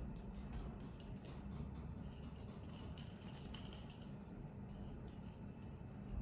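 Small bells jingling irregularly, like a cat's bell toy being batted around.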